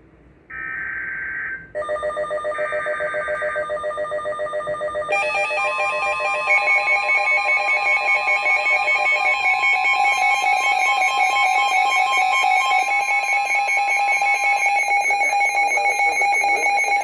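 Emergency Alert System activation on NOAA Weather Radio for a severe thunderstorm warning. Two short buzzing SAME data bursts come first. Then a weather radio's alert alarm beeps rapidly, about four pulses a second, with the steady 1050 Hz warning tone sounding alongside until about three seconds before the end. It all cuts off abruptly.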